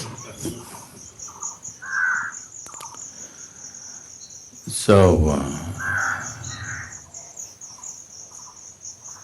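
Steady, pulsing, high-pitched chirring of crickets, with a few short bird calls over it.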